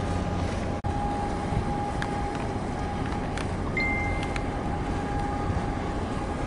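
Waterside ambience: a steady low rumble of ship and boat engines mixed with wind on the microphone, with a thin steady hum over it. The sound drops out for an instant about a second in, and a short high beep sounds around the middle.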